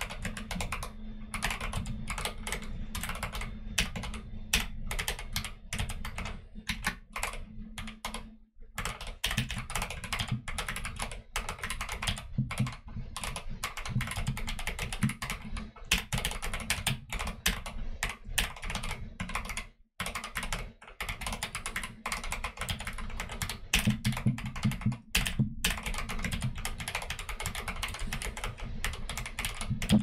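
Fast, continuous typing on a custom hot-swap mechanical keyboard, a YMDK Wings Arisu-layout board with Akko Jelly Black linear switches and Akko Neon keycaps: a dense stream of key clacks with brief pauses about 8 seconds in and again around 20 and 25 seconds.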